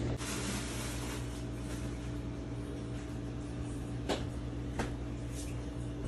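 Steady low kitchen hum, with a brief rustle just after the start and two light clicks about four and five seconds in, as food is handled on a baking pan.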